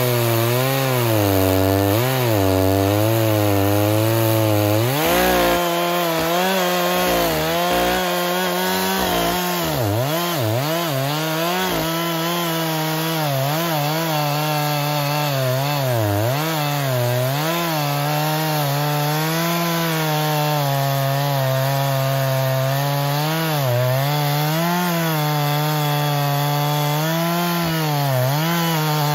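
Gas chainsaw cutting through a thick log, running continuously at high speed, its engine pitch rising and dipping as the chain loads in the wood.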